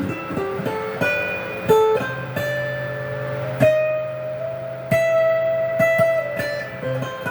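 Electric guitar, an IYV Les Paul-style 'Greeny' tribute, played clean through an amp in the middle pickup position with its two humbuckers out of phase: single picked notes, a few of them held for a second or more.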